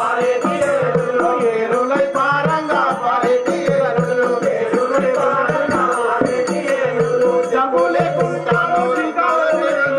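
Telugu folk-drama song: a voice singing over drum and small-percussion accompaniment with a quick, even ticking rhythm.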